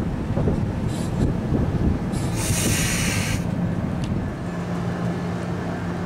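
NJ Transit commuter train rolling past and away along the track, a rumble of steel wheels on rail with scattered clicks. A brief loud hiss comes about two and a half seconds in, and a steady low hum sets in near the end.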